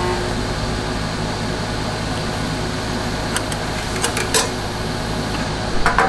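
TIG tack-welding of a stainless steel rod frame: the welding machine and arc give a steady hum and hiss, with a few light metallic clicks in the second half.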